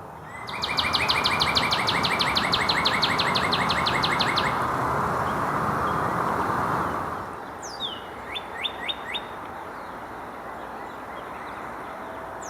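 Male northern cardinal calling: a fast, even trill of repeated high notes for about four seconds, then a few short, sharp notes about eight seconds in. A steady rushing background noise runs under the first seven seconds.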